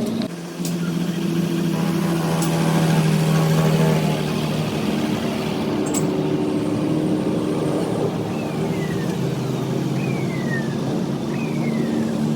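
An engine running steadily, its pitch shifting slightly about half a second in and again around four seconds in, with a few short falling whistles near the end.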